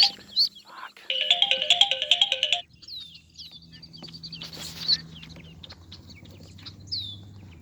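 A phone ringtone plays a short stepped melody for about a second and a half. It is followed by ducklings peeping in short, high, falling chirps.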